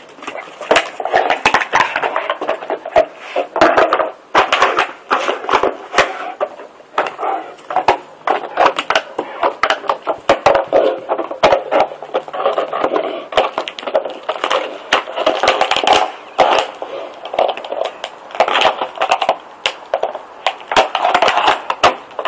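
A mastiff chewing and crushing a plastic bottle: a dense run of irregular crackles and crunches of the plastic.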